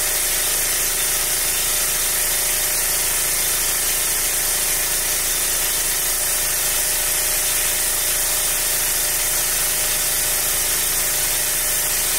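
Neonatal nose suction machine's pump motor running steadily on its lowest setting, a constant hum with a hiss of air, as it suctions mucus from a congested newborn puppy's nose through a syringe tip on the hose.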